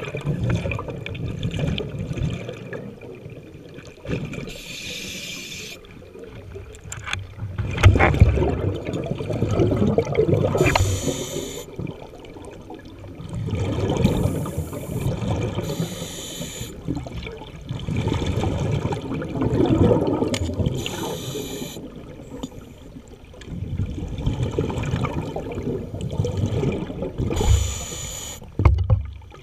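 Scuba diver breathing through a regulator underwater, over about five breaths. Each breath is a few seconds of bubbling from the exhaled air, alternating with a short hiss as air is drawn through the regulator.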